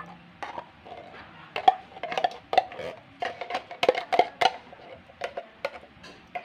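A metal spoon scraping and knocking inside a tin can of cream-style sweet corn to empty it: a run of irregular sharp metallic taps and scrapes, each with a brief ringing tone from the can.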